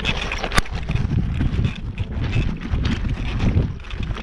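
Wind buffeting an action camera's microphone, with a mountain bike's tyres crunching and clattering over loose stones and gravel on a steep climb. There are many small crackles and a sharp click about half a second in.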